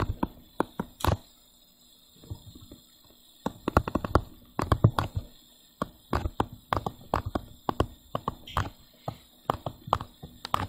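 Stylus tapping and scraping on a tablet's touchscreen while handwriting: rapid, irregular clicks in bursts, one stroke after another, with a pause of about two seconds near the start.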